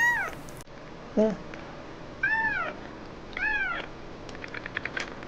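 Very young orange kitten crying: three high, arched meows that rise then fall, at the start, about two seconds in and about three and a half seconds in. Near the end comes a run of faint quick clicks.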